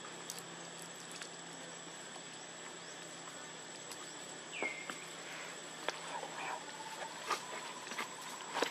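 Faint outdoor ambience with a steady high insect drone. About halfway through comes one short falling chirp, and scattered light clicks and rustles follow in the second half.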